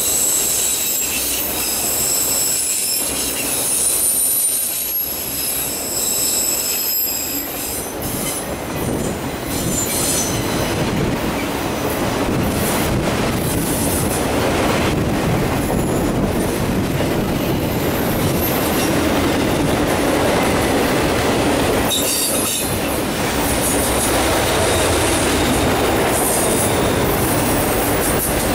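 Freight train of autorack cars rolling past on a curve: wheels squealing on the rail in thin, high steady tones for the first several seconds, then a steady rolling noise of wheels on track with light clatter.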